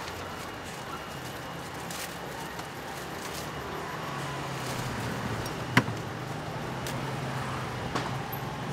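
Steady background noise of a street-food stall with a low hum, broken by one sharp knock on a hard surface about six seconds in and a lighter one near the end.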